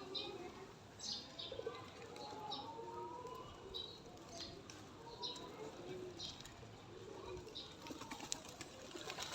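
Pigeons and small birds at feed: short high chirps repeating every half second or so, with pigeon wing flaps and low calls among them.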